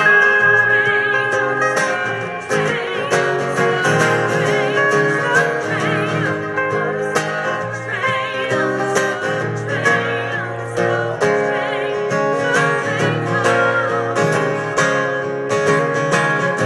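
Live acoustic folk music: several acoustic guitars strumming and picking an instrumental passage, with a melody line that wavers and bends in pitch above the chords.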